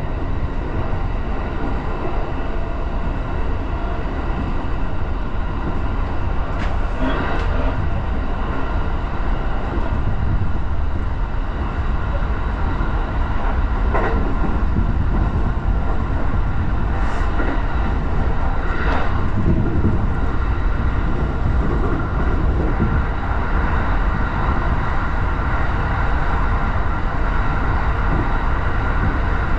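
Commuter train running along the track: a steady low rumble of wheels and motors, with a few brief clicks from the rails.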